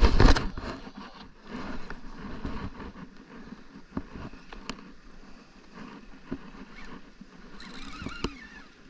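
Rod and conventional reel being handled by an angler hooked up to a fish: a few sharp, scattered clicks and knocks over a low, steady background of boat and wind noise.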